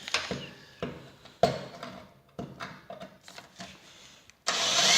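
A few light knocks and clicks of tool handling, then a Porter-Cable 20-volt cordless drill starts suddenly near the end and runs loud and steady, drilling a hole in the steel snow blade.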